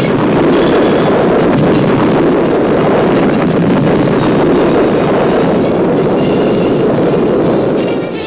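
Rocket engines at liftoff: a loud, steady rushing noise that eases off near the end.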